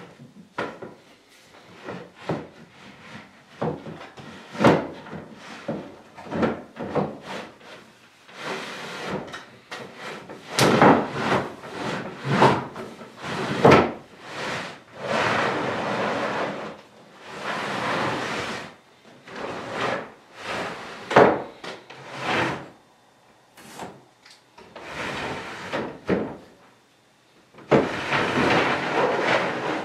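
Wooden tambour door of a rosewood cabinet being slid back and forth in its waxed tracks: an irregular run of sliding rubs and clicks as the slats run along the track, with a few longer slides.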